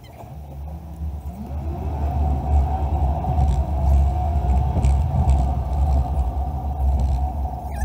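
Car engine and low road rumble heard from inside the cabin as the car accelerates away, the engine note rising and the sound growing louder over the first couple of seconds before settling into a steady drive.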